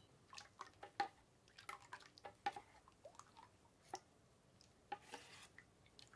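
Metal ladle stirring thin batter in a stainless steel bowl: faint, irregular clinks of ladle on bowl, some with a short metallic ring, with soft wet sounds of the batter.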